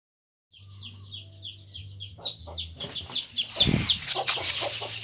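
Mother hen clucking while chicks peep in a quick, continuous run of short high chirps. The clucking sets in about two seconds in, with a louder low burst of sound around three and a half seconds in.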